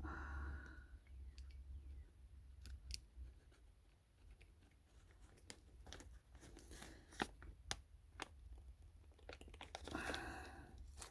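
Small scattered clicks, scrapes and rustles of a crimped wire terminal being fiddled against a plastic connector housing by hand, with one louder click about seven seconds in; the terminal does not snap home.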